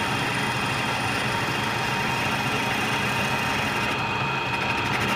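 Small metal lathe running steadily while a boring bar takes a deep internal cut, fed by hand on the compound slide; a constant motor hum and cutting noise with no change in level.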